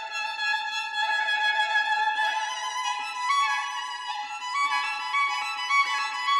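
Background music: a melody of held notes, each rich in overtones, moving up and down in pitch in steps.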